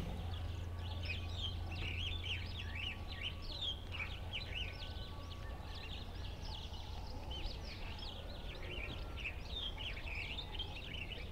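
Many small birds chirping continuously, a steady stream of short chirps, over a low steady hum.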